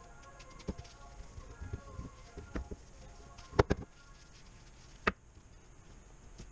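Knocks and clinks of a round aluminium engine part being handled and set down on a workbench. The loudest are a close double knock about halfway through and a single sharp knock about a second and a half later. Faint background music plays underneath.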